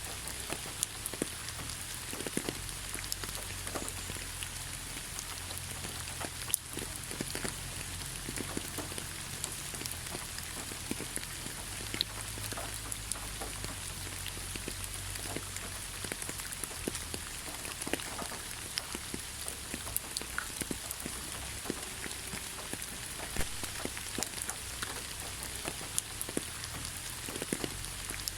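Steady rain falling, with many scattered sharp drop ticks over an even hiss and a low rumble underneath.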